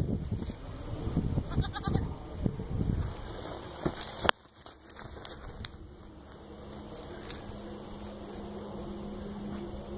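Goat bleating, with loud rustling in the first few seconds and a sharp click about four seconds in.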